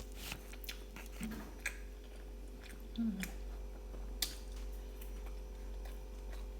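A person chewing a mouthful of butter chicken, with scattered small wet mouth clicks and two short low hums.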